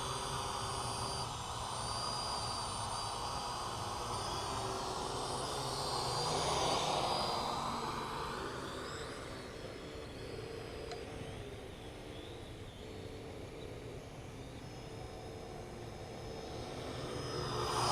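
Parrot AR.Drone 2.0 quadcopter flying: its four electric motors and propellers give a steady whine with shifting pitch. It grows louder about six to seven seconds in as the drone comes close, then fades again.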